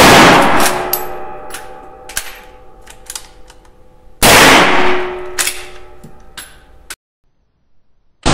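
Two rifle shots from a Winchester Model 94 commemorative lever-action in .30-30 WCF, one at the start and one about four seconds later. Each shot is followed by a long echo, a lingering metallic ring and sharp metallic clicks as the lever is worked to chamber the next round.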